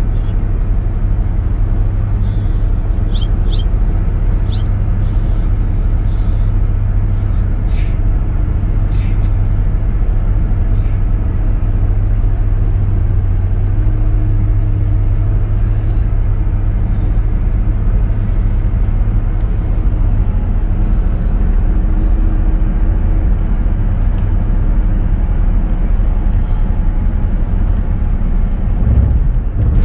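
Steady road and engine noise inside a moving car's cabin: a continuous low rumble. A few faint high chirps come about three seconds in, and a couple of faint clicks a few seconds later.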